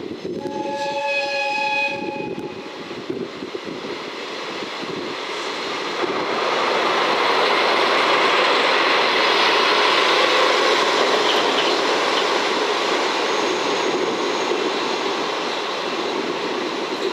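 DD51 diesel-hydraulic locomotive sounding its horn once about half a second in, a blast of under two seconds. The train then passes close by, its engine noise and the clatter of the rail-carrying Chiki flat wagons building up, loudest mid-way, and easing a little near the end.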